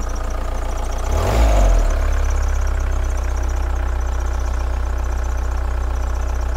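1987 VW camper's turbodiesel engine idling with a hunting idle: the revs swell and fall back once about a second in, then settle to a steady idle.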